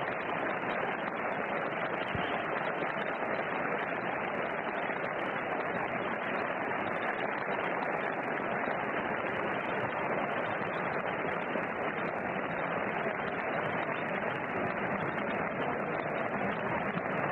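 Large audience applauding steadily in a concert hall.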